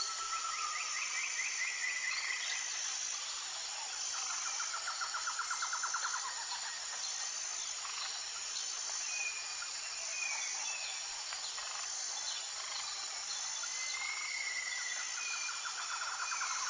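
Outdoor nature ambience: a steady high insect drone, like crickets, with songbirds breaking in a few times with short bursts of rapid trilling.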